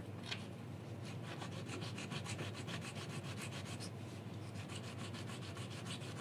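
A small machined aluminium part is rubbed by hand back and forth on a wet sheet of sandpaper laid flat, making a steady scratchy rasp of quick, even strokes. The strokes grind away the machining marks on the part.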